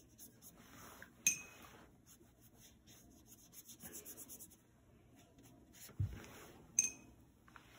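Faint scratchy rubbing of a wet paintbrush moving over watercolor paper. Two sharp little clinks, about a second in and near the end, and a soft thump shortly before the second clink.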